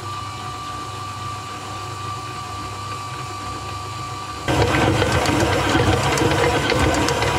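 Stand mixer motor running steadily with its dough hook turning through flour and liquid for pizza dough. About four and a half seconds in the sound turns suddenly louder and rougher as the hook works the wet, dark dough.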